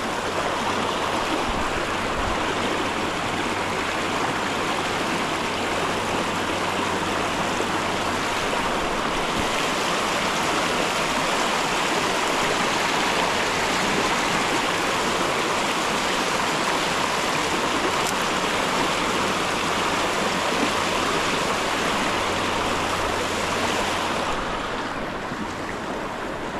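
Water of a creek rapid rushing steadily, a little quieter near the end.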